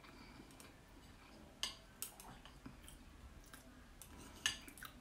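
Metal chopsticks clinking against a bowl a few times as food is picked out, faint.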